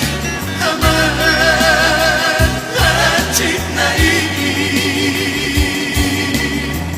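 Background music: a song with a singing voice holding long, wavering notes over bass accompaniment.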